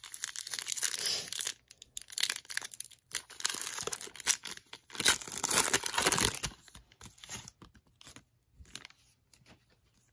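A 2014 Topps Football trading-card pack's shiny foil wrapper being torn open and crinkled by hand, in repeated bursts of tearing and crinkling. The crinkling dies away about seven seconds in, leaving a few faint ticks as the cards come out.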